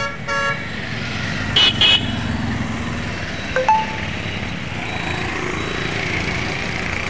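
Road traffic passing: a steady noise of vehicles on the road, with short vehicle horn toots, two of them close together about one and a half seconds in and a brief beep nearer four seconds in.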